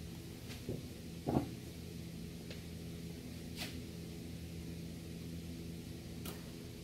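A plastic tub of oil handled and set down on a wooden workbench: one soft knock about a second and a half in, a smaller one just before it, and a few light clicks later, over a steady low hum.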